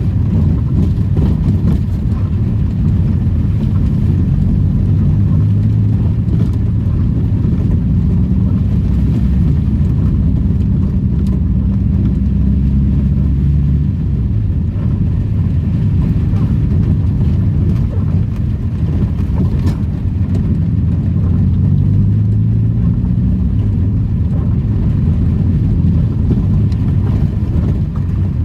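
Daihatsu Charade driving, its engine running steadily under a continuous rumble of road noise, the engine note drifting up and down.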